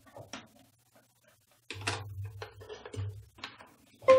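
Cable handling: a cluster of clicks and knocks about two seconds in as a cable is plugged into the 3D printer's connector. Right at the end a short pitched chime starts.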